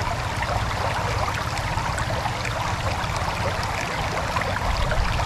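Steady rush of a shallow river's brown water flowing fast past the bank.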